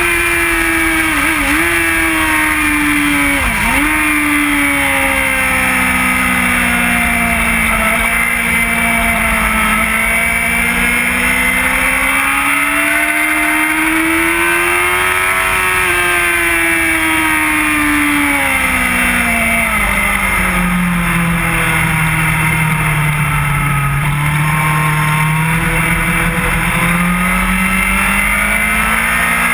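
Onboard sportbike inline-four engine at speed on track, its pitch dipping sharply twice in the first few seconds, sinking, climbing again about halfway, dropping lowest a little after twenty seconds, then rising once more near the end, under a steady rush of wind noise.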